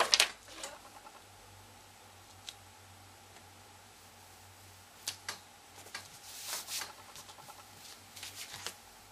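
Paper crafting handling sounds: a sharp click just after the start as the ATG adhesive tape gun comes off the paper. Then a few light taps and a brief soft rustle about six to seven seconds in, as a cardstock doily is set and pressed down on a cutting mat.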